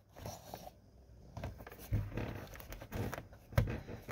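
Handling noise as a rubber wiring boot is worked over plastic trim and pressed into place: rubbing with a few short knocks and clicks, the loudest near the end.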